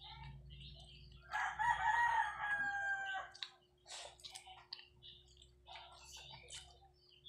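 A rooster crowing once, starting a little over a second in and lasting about two seconds.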